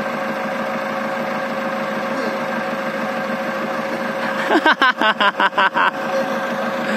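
Long King wheel loader's diesel engine idling steadily. About four and a half seconds in, a quick run of about eight short, loud, pitched pulses cuts across it for about a second and a half.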